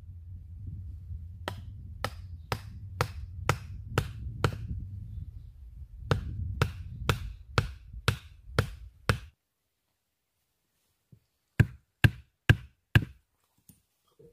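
Chopping with a blade in quick, even strokes about two a second, in three runs of seven, seven and four strokes with short gaps between them.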